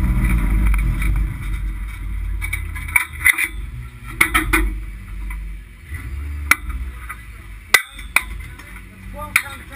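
Stripped race car's engine rumbling low and fading away within the first two seconds, then a scattering of sharp metallic clicks and clanks inside the bare metal cabin, about eight in all.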